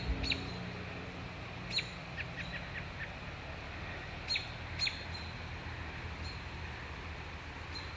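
Songbirds giving short, sharp chirping calls, a few spaced apart with a quick run of short notes about two seconds in, over a low steady background rumble.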